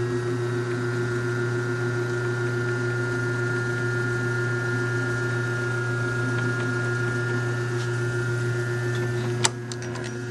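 Old belt-driven lathe running on a clothes-dryer motor, giving a steady motor hum with a steady higher whine over it. A single sharp click comes near the end.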